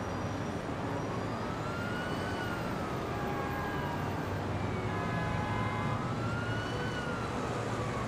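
Emergency vehicle siren wailing, two slow rising-and-falling sweeps of about three seconds each, over a steady low rumble.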